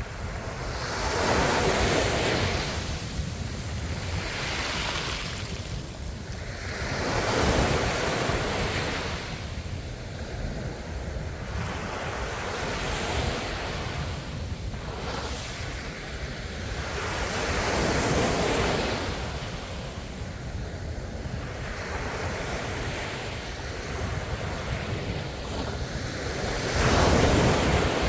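Ocean waves breaking and washing on the shore, the surf swelling in broad surges every several seconds, with a steady low rumble and some wind noise on the microphone.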